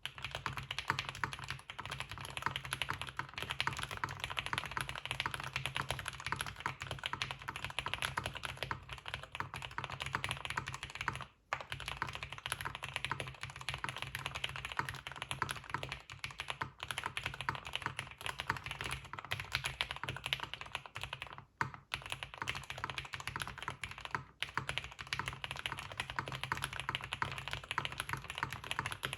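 Fast, continuous typing on a Mode 80 mechanical keyboard with lubed Everglide Aqua King linear switches on an aluminium plate and GMK Rudy keycaps. The typing breaks off briefly about 11 seconds in and again near 21 and 24 seconds.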